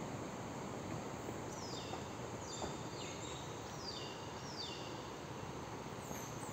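A bird calling a series of about five short, high notes, each falling in pitch, spaced under a second apart, over a steady hiss of forest background.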